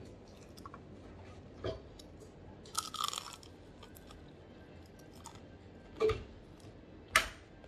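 Close-up crunching and chewing as crispy fried tofu is bitten and eaten, in a few short crackly bursts: a cluster about three seconds in, then two sharp crunches near the end, the last the loudest.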